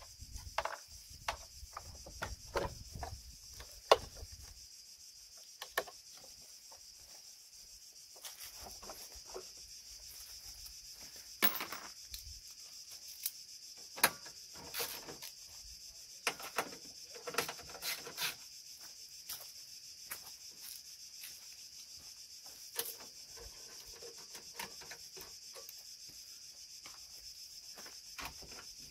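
Scattered clicks, knocks and rubbing of plastic bumper parts and tools as a car's front bumper cover is worked loose and taken off, over a steady high insect drone.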